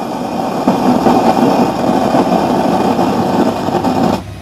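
Computer speaker box switched on and putting out a loud, harsh noise with a low hum underneath instead of clean sound, dropping in level near the end. The repairer traces this bad noise to the box's two faulty sound (amplifier) ICs.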